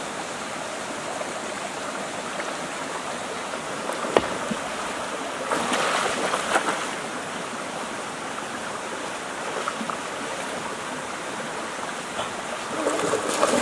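Shallow stream running, with splashing from people wading and shifting a large mesh trap in the water, loudest about six seconds in and again near the end. One sharp knock about four seconds in.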